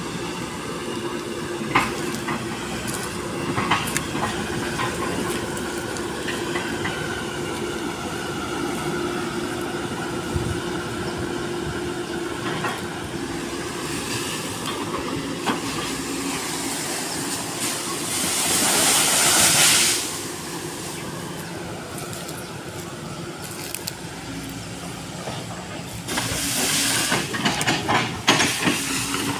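SANY SY215C excavator running, its diesel engine and hydraulic pump working under load with a whine that rises and falls as the boom moves. A loud rushing hiss lasts about two seconds past the middle, and knocks and crackles follow near the end.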